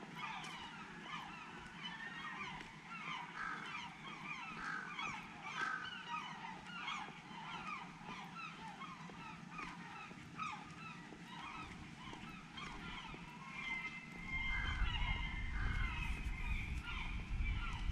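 A flock of birds calling all at once, a dense unbroken chorus of short overlapping calls. A low rumble joins near the end.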